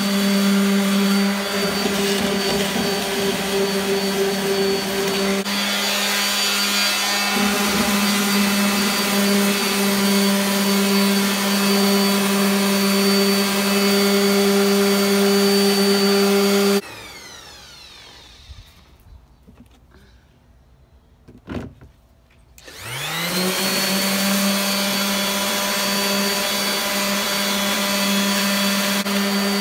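Electric orbital sander running steadily with an even hum, grinding hardened epoxy resin drips off the back edge of a canvas. A bit over halfway through it is switched off and winds down; after a couple of knocks it is switched back on and winds up to speed again.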